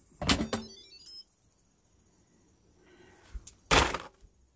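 Instant Pot lid being handled: two short clattering knocks about three and a half seconds apart, the first followed by a faint run of short high beeps.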